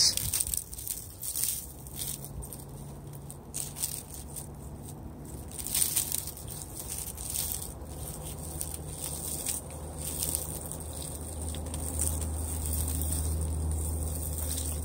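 Ice-coated pine needles and branches clinking and crackling as a frozen pine limb is shaken: a scattered run of faint sharp clicks, with a low steady rumble underneath.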